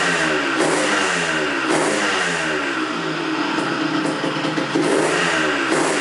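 Yamaha DT 180's two-stroke single-cylinder engine revved in repeated short blips, the pitch sliding down after each one. It carries the strange noise the owner has had since fitting a CKR crankshaft, a rattle that eases when the clutch is pulled in.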